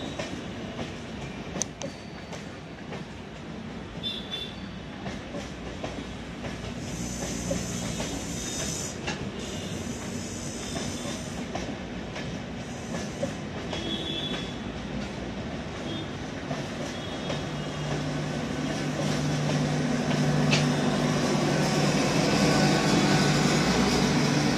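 Humsafar Express passenger coaches rolling slowly past at close range, wheels clacking over the rail joints and points, with a few short, high wheel squeals. In the last several seconds a steady low hum grows louder as the louvred luggage and power car at the tail comes by.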